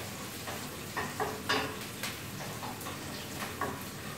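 Sliced onions sizzling in hot oil in a frying pan, stirred with a utensil that knocks and scrapes against the pan several times.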